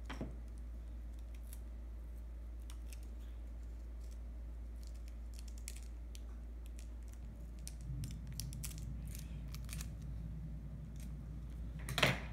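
Scissors cutting a strip of Kapton tape: scattered light clicks and crinkles of tape handling, with one sharper snip near the end, over a steady low hum.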